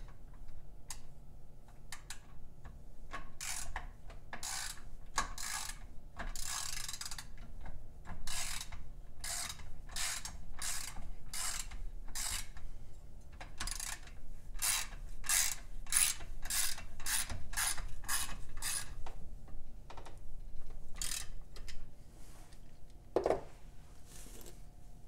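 Ratchet wrench clicking in short repeated strokes, about one or two a second, tightening a nut. The strokes thin out to a few scattered ones near the end.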